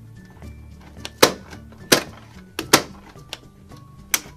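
Plastic toy popcorn maker clacking as it is worked by hand: about five loud, sharp, irregular clacks, over background music.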